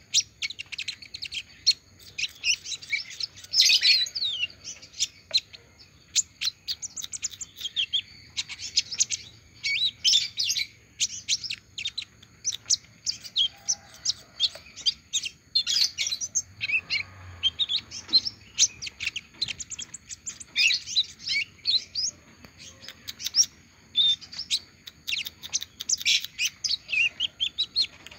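Male Van Hasselt's sunbird (kolibri ninja), just out of its moult, singing: quick runs of high, thin twittering chirps in bursts with short pauses.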